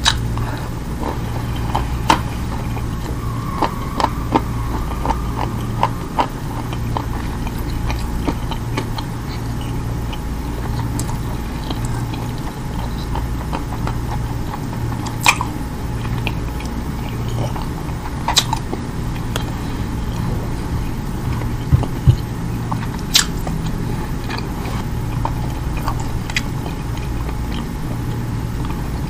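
Close-miked chewing and mouth sounds of someone eating rice and roast lamb by hand, with scattered sharp wet clicks and smacks over a steady low hum.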